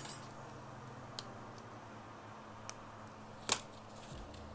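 Scattered small sharp clicks of tools and phone parts being handled at a repair bench, the loudest about three and a half seconds in, over a faint steady hum.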